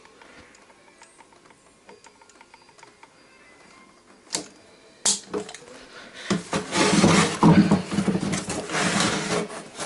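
Handling of a plastic washing-machine tub while it is being glued: faint ticks, two sharp knocks about halfway through, then a few seconds of loud scraping and rubbing near the end.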